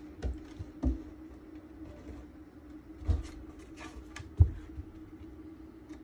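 Dog paws landing on wooden stair treads as a puppy climbs down with another dog beside it: four dull thumps, the last the loudest, with light claw clicks on the wood between the later ones. A steady low hum runs underneath.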